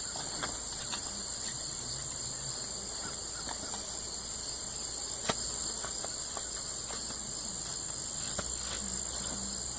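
Steady, high-pitched chorus of insects. There is one sharp click about five seconds in.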